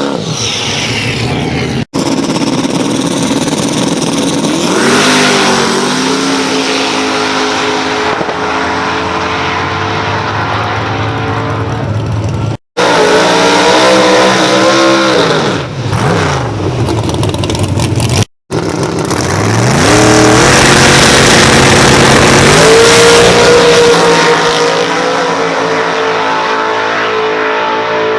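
Drag race cars accelerating hard down the track, engines rising in pitch and holding high several times over, in short clips broken by three brief dropouts.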